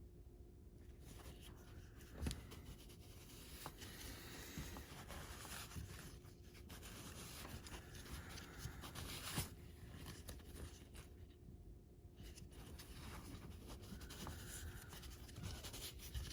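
Faint rubbing and scrubbing of a shop towel against a foam RC tire wet with traction compound, in bursts with a short pause about eleven seconds in. Two light knocks, about two seconds in and again near nine seconds.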